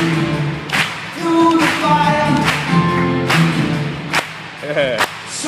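Live rock band playing with vocals in a big arena, recorded from far back in the crowd: a steady drum backbeat hits a little more than once a second under sung melody lines and the crowd singing along.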